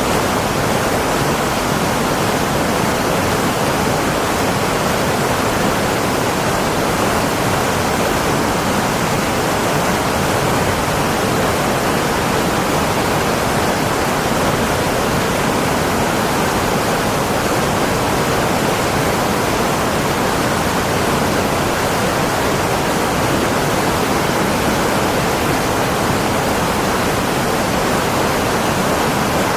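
Loud, steady rushing noise that does not change.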